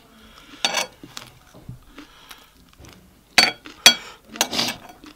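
A metal spoon clinking against bowls and plates, three sharp ringing clinks, with crunching of crisp pani puri shells near the end.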